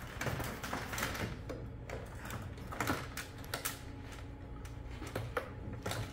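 Plastic clicks and light knocks as the round intake grille of a Samsung 360 ceiling cassette is handled and unclipped from the unit, a few a second at irregular intervals, over a low steady hum.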